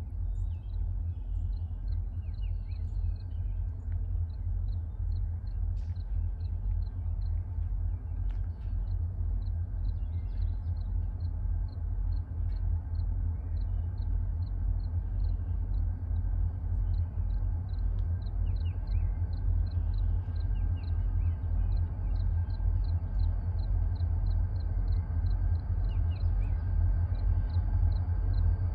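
A low, steady rumble that grows slowly louder, with a short high chirp repeating about twice a second.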